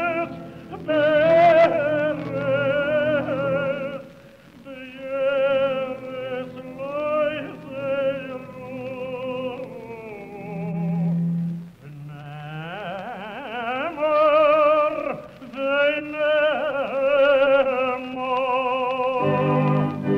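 A cantor singing Jewish liturgical chant (hazzanut) in a tenor voice with wide vibrato, long held notes and sliding ornaments, including a long upward slide about twelve seconds in. Low sustained notes accompany the voice, and the sound is dull and band-limited, as an old recording is.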